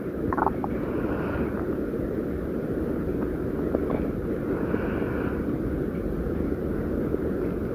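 Human stomach growling: a steady low rumble with a few soft higher gurgles rising and falling, about a second and a half in and again around five seconds in.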